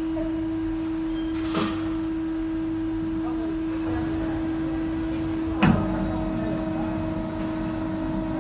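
CNC metal spinning machine running with a steady hum and low rumble, with a short clunk about a second and a half in and a louder clunk a little past halfway.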